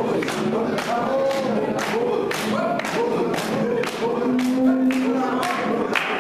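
A group singing in chorus over a rope-tuned barrel hand drum and hand clapping, beating a steady rhythm of about two strokes a second. A voice holds one long note about four seconds in.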